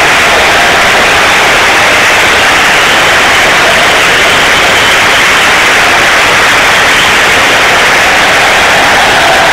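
Large football stadium crowd cheering, a steady loud wash of noise with no breaks, so hot on the recording that it sounds like static.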